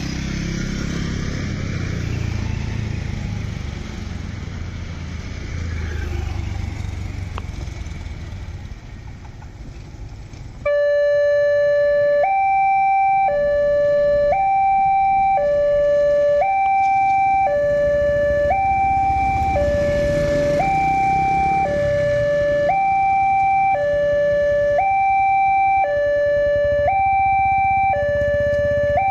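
Motorcycle traffic running over the level crossing. About 11 seconds in, the railway crossing's electronic warning alarm starts suddenly and loudly: two tones alternating high and low, each held about a second, signalling an approaching train as the barrier begins to come down.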